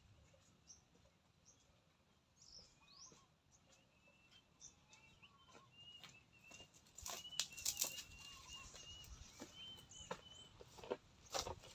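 Faint short bird chirps, repeated in quick little calls, with scattered clicks and scuffs joining in from about seven seconds in.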